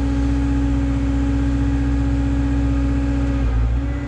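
Caterpillar 317 excavator running as it works, a steady diesel engine drone with a strong steady tone over a low rumble; the tone dips briefly near the end.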